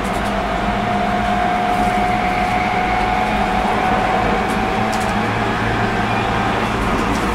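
Running noise heard inside a JR East E127-100 series electric multiple unit (GTO-thyristor VVVF inverter) under way between stations. A steady whine rises slightly in pitch over the first few seconds, then holds, over the hum of the car and its air conditioning.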